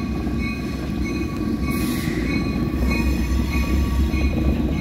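CN diesel locomotive moving slowly at close range, its engine throb growing louder as it comes up, with a high ringing tone repeating about twice a second.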